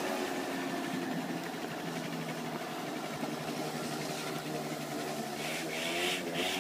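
Moped's small engine running steadily at low speed, an even drone.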